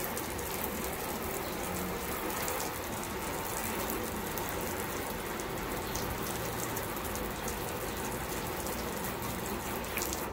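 Garden hose sprayed in a sprinkler pattern onto a sealant-coated car hood: a steady hiss of water with crackling spatter as it hits the paint and beads up. It cuts off at the very end.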